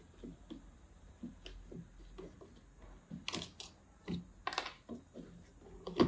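Light plastic clicks and taps as the front grille of a small desk fan-humidifier is handled and fitted back onto its housing, with a few sharper clicks in the second half.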